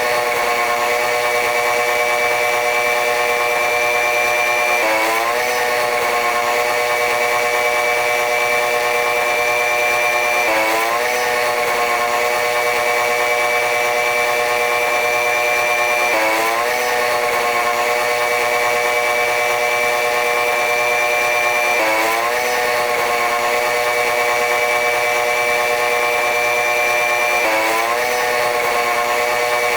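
Diesel-hauled train running: a steady mechanical drone with a high whine on top. About every five and a half seconds its tones sweep quickly upward and then settle again, in a regular repeating pattern.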